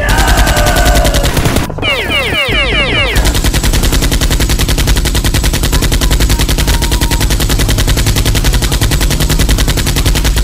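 Rapid automatic machine-gun sound effect, a fast unbroken stream of shots, with a cluster of short falling whistles about two seconds in.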